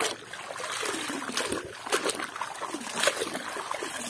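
Water splashing and sloshing as a plastic toy train is swished back and forth by hand in shallow muddy water to wash off the mud, in a run of irregular splashes. Near the end water pours off the toy as it is lifted.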